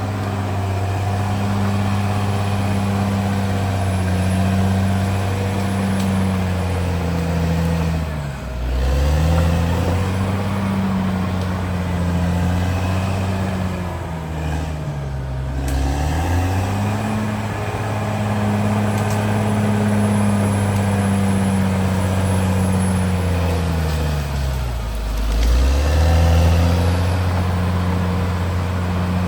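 CAT D6R XL bulldozer's diesel engine running under load. Its note dips and comes back up three times, about 8, 15 and 25 seconds in, as the engine lugs down and recovers.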